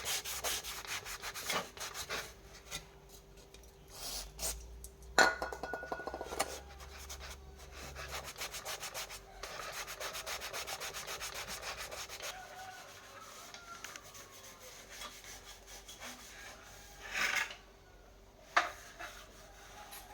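Rapid back-and-forth rubbing or scraping strokes on a hard surface, in two runs: at the start and again around ten seconds in, with a few sharp clicks and knocks in between.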